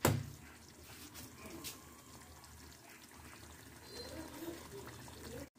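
Thick fish and potato curry simmering in a pot, bubbling faintly, with one short knock at the very start.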